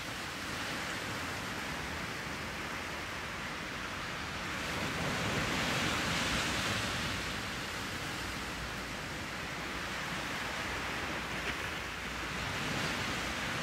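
Steady rushing noise with no distinct tones, swelling a little about five to seven seconds in.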